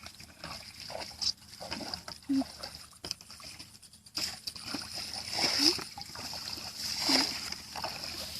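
Water splashing and sloshing in irregular strokes, the loudest about five and a half and seven seconds in, over a steady high-pitched hum.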